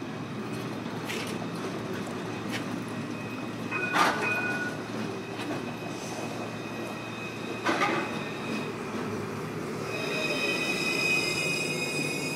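A low-floor C-class tram rolling in on street rails and slowing to a stop. Its wheels clunk over the track a few times and squeal briefly about four seconds in. Steady high-pitched squealing sets in near the end as it brakes to a halt.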